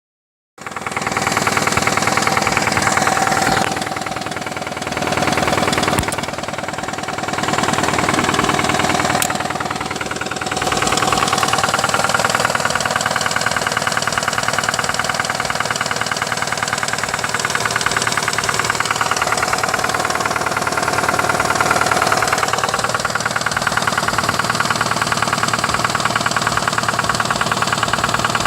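2005 Nissan Altima's 2.5-litre four-cylinder engine running with a rapid, steady knocking from inside the engine, which the owner cannot identify. The level swells and dips a few times in the first ten seconds, then holds steady.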